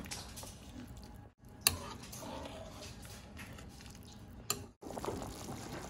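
Metal ladle stirring shrimp broth in a cooking pot, over a low, steady background noise, with two sharp clicks of the ladle against the pot, one under two seconds in and one about four and a half seconds in. The sound drops out briefly twice.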